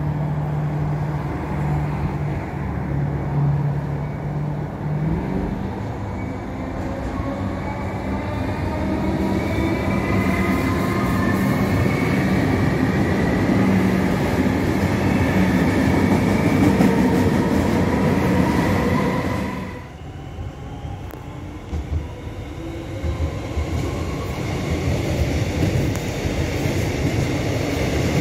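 Suburban electric train running along the tracks, with wheel-on-rail rumble and a motor whine that rises steadily in pitch as the train picks up speed. About twenty seconds in, the sound drops off suddenly, then the rumble of a train builds again.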